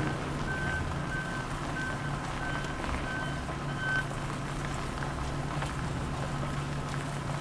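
A vehicle's reversing alarm beeping steadily, about six evenly spaced beeps that stop about four seconds in, over the steady low rumble of a running engine.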